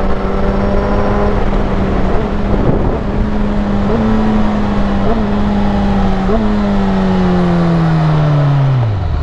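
Kawasaki Ninja ZX10R inline-four engine running steadily under way. Three short blips in engine pitch come about a second apart midway through, then the revs fall away steadily over the last couple of seconds.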